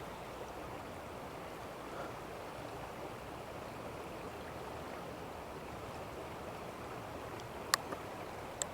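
Steady rush of the upper River Wharfe flowing over its bed, with two short sharp clicks near the end.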